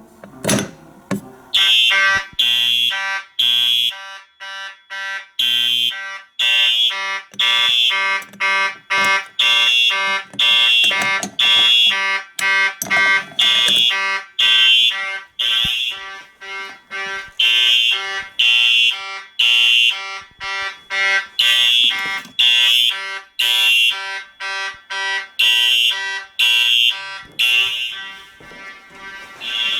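Several vintage fire alarm horns sounding together in a system test. Their loud, harsh pulses, about one a second, overlap in different rhythms, one of them a march-time pattern.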